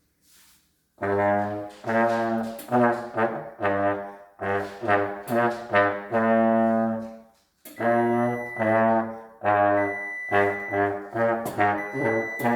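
A low-pitched brass instrument, trombone-like, playing a simple practice-book tune as a string of separate held notes, starting about a second in with a short break halfway through.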